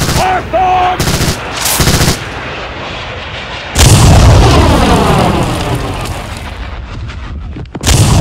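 Two short bursts of gunfire, then a loud explosion about four seconds in that dies away slowly with a falling sweep, and a second loud blast just before the end.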